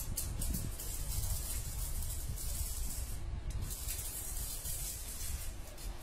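Wind buffeting the microphone as a steady low rumble, with a hiss up high that swells and fades several times.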